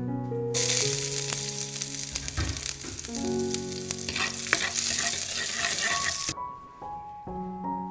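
Smashed garlic sizzling in hot oil in a frying pan as a spatula stirs it. The sizzle starts about half a second in and cuts off suddenly near the end, over soft background music with held notes.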